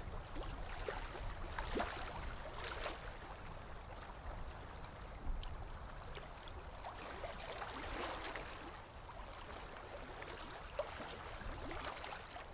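Small waves lapping and trickling, with many small irregular splashes over a steady low rumble.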